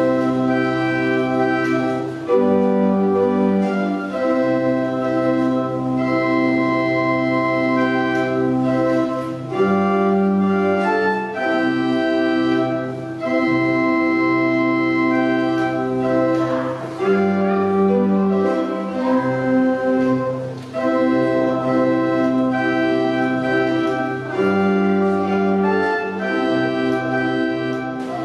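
Organ music: slow held chords that change every one to two seconds, fading out near the end.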